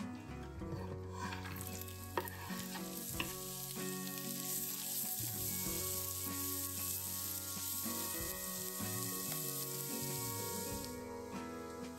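Chopped onion and carrot frying in oil in a nonstick frying pan, sizzling steadily while a spatula stirs and scrapes them, with a few sharp taps. The sizzle cuts off about a second before the end.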